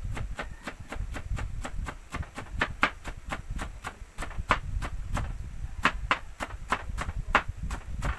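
Kitchen knife chopping on a wooden chopping block: steady knocks of the blade on the wood, about three or four a second, some much louder than others.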